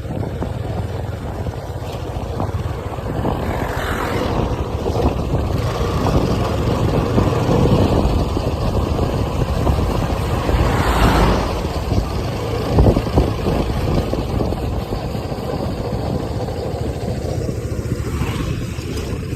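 Steady road and engine noise of a vehicle on the move. It swells briefly twice, about four and eleven seconds in.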